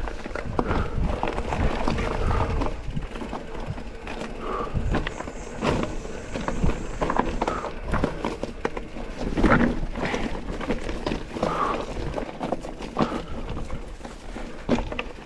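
E-mountain bike rolling down a rocky, slippery singletrack: tyres crunching over loose stones and the bike rattling with irregular knocks, over a continuous low rumble.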